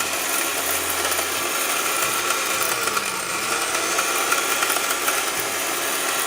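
Disnie 1300 W 'Cyclone' blender's motor running steadily at full speed, grinding pieces of hard brick to powder in the jar.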